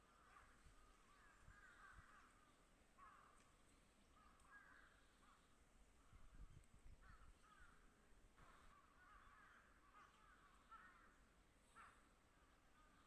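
Crows cawing faintly, a string of harsh repeated calls.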